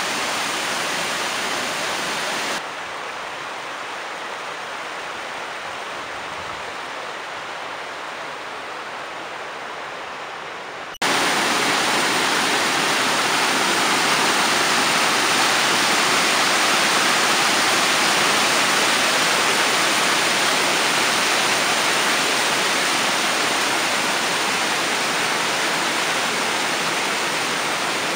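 Waterfall rushing: a steady wash of falling water. It drops quieter about two seconds in, then jumps abruptly much louder about eleven seconds in, where the recording is close to the falls.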